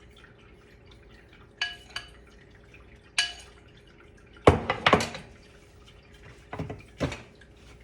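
Kitchen dishes and utensils clinking: a few short ringing clinks, then a run of louder knocks about halfway through and two more near the end.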